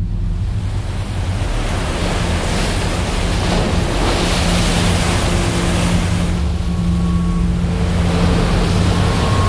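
Heavy sea surf breaking and washing against a rocky shore, a loud continuous rush. Low steady held tones sound underneath from about two seconds in.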